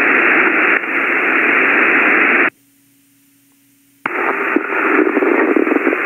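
Ham radio receiver static: a steady hiss of the kind heard between transmissions on the monitored frequency. About halfway through it cuts out for about a second and a half, leaving a faint low hum, then comes back with a click.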